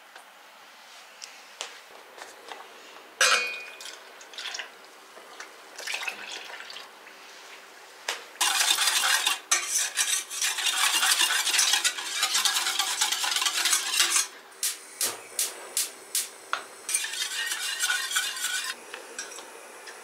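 Clinks and knocks of handled household items, with a sharp knock about three seconds in, then a long stretch of hissing noise, a run of quick clicks, and a shorter hiss near the end.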